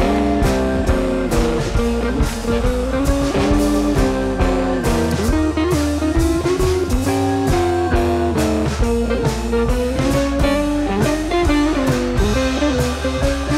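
Background music: a guitar-led blues track with bass and drum kit, setting in abruptly at the start.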